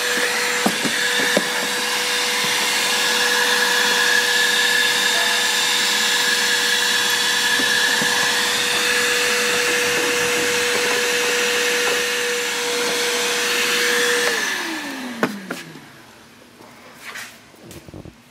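Vacuum cleaner running steadily with a whine, vacuuming out a car's floor. About fourteen seconds in it is switched off and its motor winds down, falling in pitch, followed by a few knocks.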